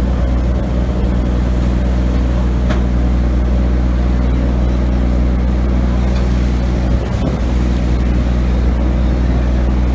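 Steady low drone of a fishing vessel's engine machinery, with a brief knock about seven seconds in.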